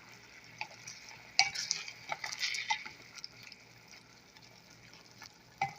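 Chicken pieces sizzling in soy sauce and Shaoxing wine as they are stirred in the pot, with scattered scrapes and knocks of the utensil against the pot, most of them between one and three seconds in.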